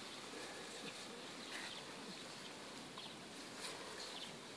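Quiet garden background: a steady faint hiss with a few short, faint bird chirps scattered through it.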